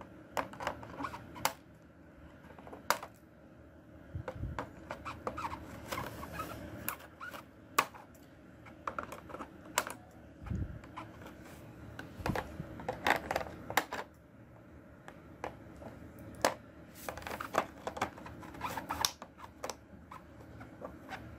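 Scissors snipping through a clear plastic blister tray, with the plastic crackling as it is handled: many irregular sharp clicks and snips, with a couple of dull bumps.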